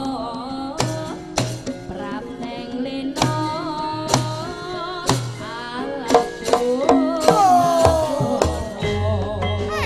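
Javanese gamelan playing, with sharp kendang drum strokes over sustained metallic tones, and a female sinden singing wavering lines that end in a long falling slide about three-quarters of the way through.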